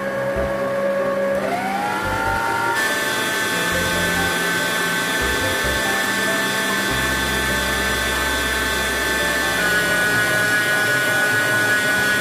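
Oxone stand mixer's motor whining as its beater whips an ice-cream base until it fluffs up. About two seconds in, the pitch rises as the speed knob is turned up, then it holds a steady high whine.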